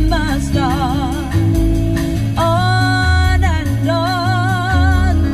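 Recorded song playing through a Cello Performance Max three-way component car speaker system inside a Nissan's cabin: a wordless melody line with wide vibrato over steady deep bass.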